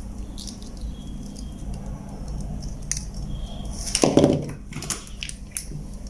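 Small clicks and taps of a plastic car remote key and hand tools being handled on a workbench, with a louder clatter of tools about four seconds in. A low steady hum runs underneath.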